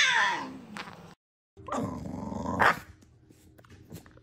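The falling, fading end of a cat's long meow. Then, after a short gap, a dog growls loudly for about a second.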